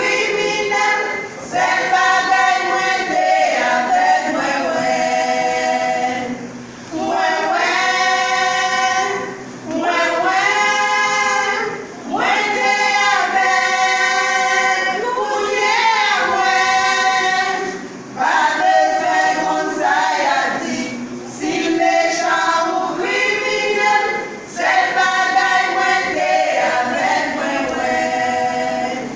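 A gospel vocal group singing in harmony with no audible instruments. The phrases last about two seconds each, with short breaks between them.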